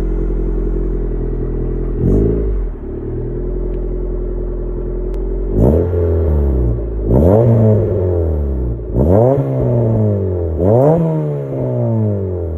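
1988 Honda CRX Si's D16A6 1.6-litre four-cylinder, with a Greddy SP2 catback exhaust, stock catalytic converter and stock intake, idling while parked. It gets a short blip about two seconds in, then from about halfway is revved sharply several times in a row, each rev dropping back toward idle.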